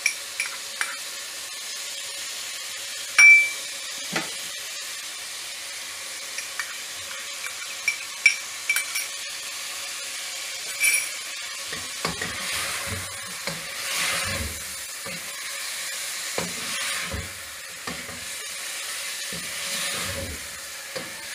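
Chicken mince frying in a pot, sizzling steadily. A few sharp clinks come in the first half, the loudest about three seconds in. From about twelve seconds on, a wooden spoon stirs it briskly, scraping and knocking against the pot.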